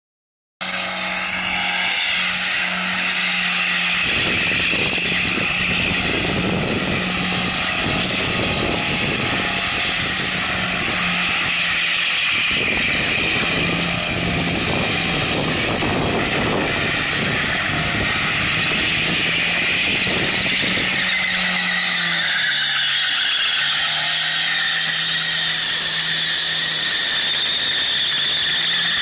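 A car doing a burnout in circles: the engine is held at steady high revs while the spinning rear tyres squeal without a break. About three quarters of the way through, the engine note drops a little.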